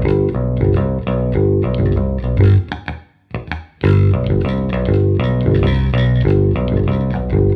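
Squier Bass VI six-string bass played clean and with little reverb: a picked lead line struck close to the bridge, which gives a brighter, less round tone. One phrase, a short break about three seconds in, then a second phrase.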